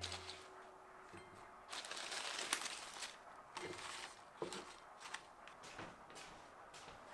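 Fresh herb leaves and sprigs rustling faintly as a hand puts them into an enamel bowl, with light clicks and taps from the wicker basket and bowl.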